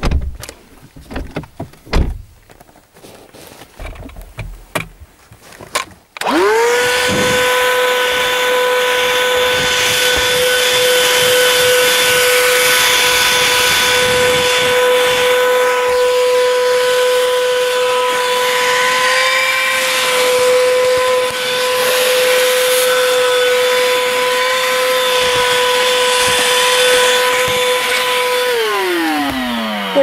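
Russell Hobbs cordless handheld vacuum cleaner switched on about six seconds in, after a few handling knocks: its motor spins up fast to a steady high whine with rushing air from the suction. It runs evenly while vacuuming, then is switched off near the end and winds down with a falling pitch.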